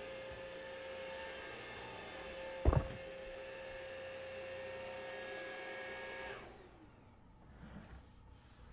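Cordless stick vacuum cleaner running with a steady whine, a single loud knock a little under three seconds in. The motor is switched off and winds down about six seconds in.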